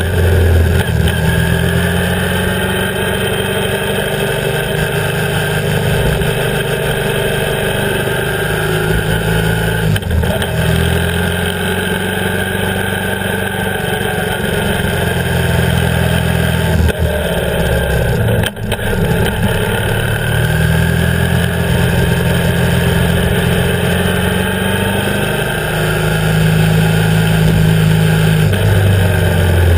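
BMW R 1150 GS boxer-twin engine running under way, its note rising and falling with the throttle, with brief breaks in the sound a few times, about ten and then seventeen to nineteen seconds in.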